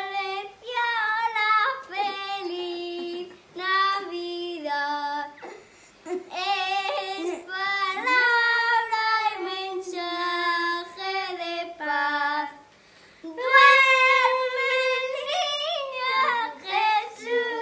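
Young boys singing a song together, unaccompanied, in phrases broken by two short pauses.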